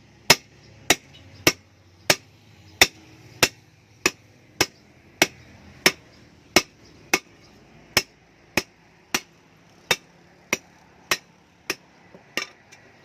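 Sharp knocks repeated at an even pace, a little under two a second, like steady hammering or tapping.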